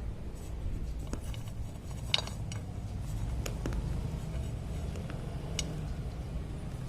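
Slate pencils being crunched between the teeth: a few sharp, brittle cracks, the loudest about two seconds in, over a steady low hum.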